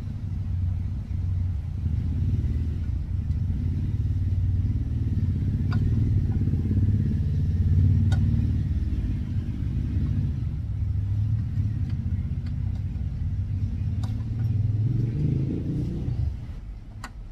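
Low rumble of a motor vehicle's engine running nearby, which swells briefly and then fades away near the end, with a few light clicks as camshafts are handled in the cylinder head.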